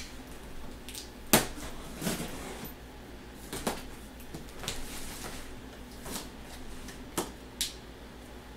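Large cardboard box being opened by hand: packing tape cut and the top flaps worked open, making a string of short scrapes, snaps and rustles. The sharpest comes about a second in.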